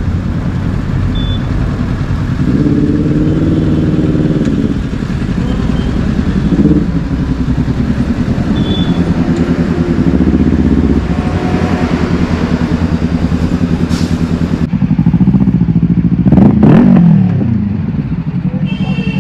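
Kawasaki Ninja sport-bike engines running at idle with a steady exhaust putter; the throttle is blipped in a quick rise and fall of revs a few seconds in, and again more sharply near the end.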